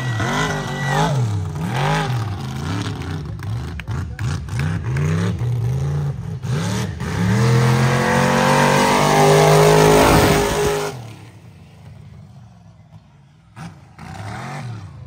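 Mega truck engine revving hard, its pitch climbing and falling again and again. A long climbing rev about eight seconds in drops off sharply near eleven seconds, and the engine comes back up near the end.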